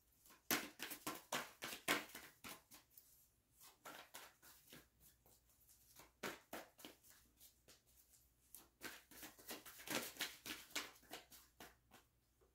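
A tarot deck being shuffled by hand: soft, quick papery clicks and flicks of the cards in several flurries with short pauses between them.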